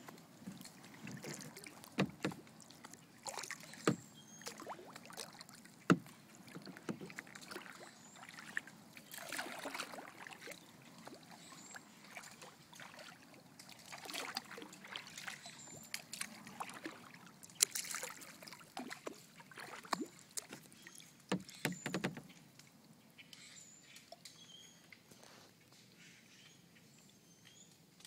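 Kayak paddling: the paddle blades dip and swish through the river water in repeated strokes, with several sharp knocks scattered among them.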